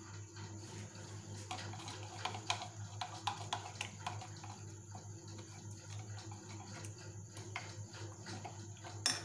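Soft scattered clicks and taps of kitchen handling, with one sharper click near the end, over a steady low hum. This fits ingredients such as chopped green chillies being added to a bowl.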